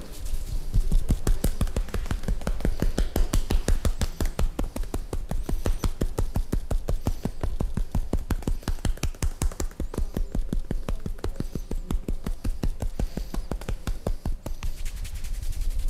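A barber's hands slapping and chopping in a rapid, even rhythm during a percussive massage, each stroke a sharp slap with a dull thud beneath it.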